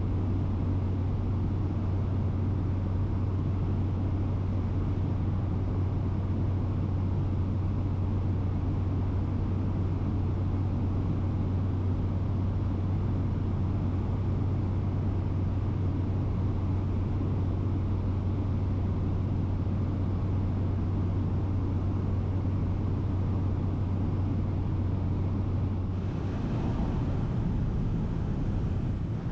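Aircraft cabin noise in flight: a steady, loud low drone with a hum at its base. About 26 seconds in, a brighter hiss and a thin high whine join it.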